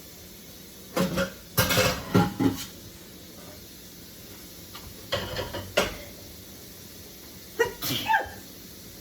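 A person sneezing in three bouts: a quick run of sneezes about a second in, another about five seconds in, and a last one near the end. The sneezes are an allergic reaction to kitchen cleaning products.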